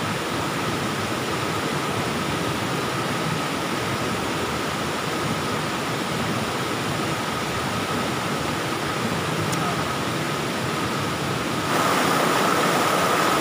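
Rushing stream water pouring over rocks, a steady rush that steps louder about twelve seconds in, when the microphone is right beside the rapids.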